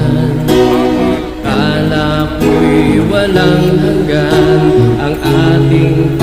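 Music from a slow Tagalog pop ballad: a wavering melody line over sustained chords, in a passage without sung lyrics.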